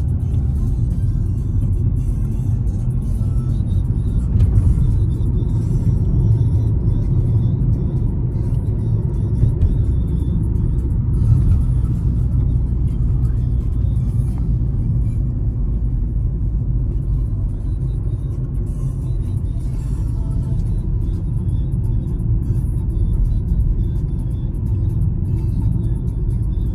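A steady low rumble with music.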